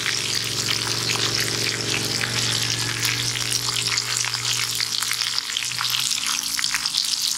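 Catfish deep-frying in oil in a small aluminium wok: a steady sizzle full of crackles and tiny pops, stirred now and then with a metal spoon.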